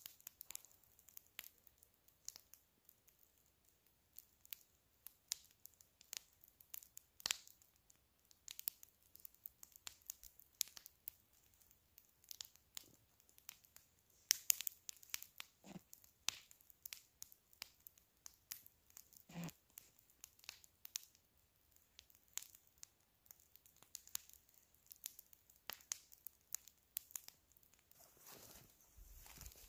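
Log campfire crackling, with scattered sharp snaps and pops at irregular intervals.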